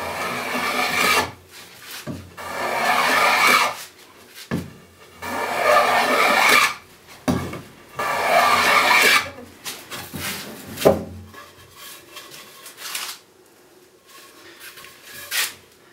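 Wooden hand plane taking shavings off the edge of a rough-sawn plank in about five long strokes, each a second or so of rasping noise with short pauses between. About eleven seconds in there is a sharp knock, after which there are only quieter handling sounds.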